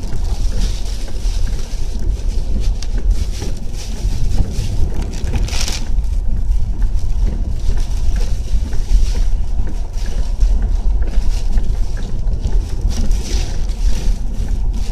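Hurricane-force wind and driving rain buffeting a moving car, heard from inside the cabin: a loud, steady low rumble with a hiss over it, swelling briefly about six seconds in.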